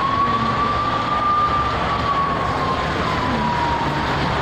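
A siren wailing slowly, its single tone rising and then slowly falling, over steady road traffic noise.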